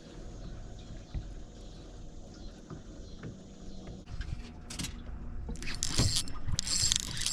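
Steady low hum and a few knocks aboard a small fishing boat, then, from about halfway, repeated bursts of splashing as a small hooked fish is brought alongside the boat.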